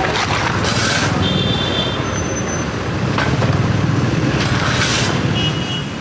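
Diesel engine of a backhoe loader running steadily at close range. Two short bursts of hiss, about a second in and near the end, and a few brief high-pitched tones sound over it.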